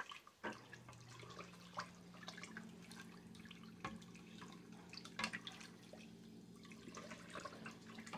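Plastic spoon stirring milk in an enamel pot: soft, irregular liquid sloshes and light clicks and scrapes of the spoon against the pot, mixing powdered milk into warm milk to break up the lumps. A faint steady low hum runs underneath from about half a second in.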